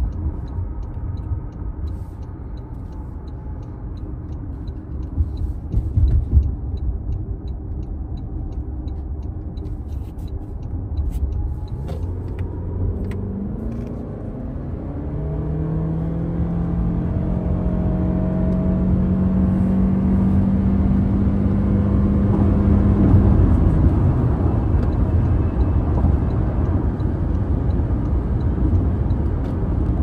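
Inside the cabin of a 2025 Toyota Camry LE hybrid: steady road and tyre rumble, then about twelve seconds in the 2.5-litre four-cylinder engine comes in with a drone that rises in pitch and holds steady as the car accelerates up to highway speed, the road noise growing louder.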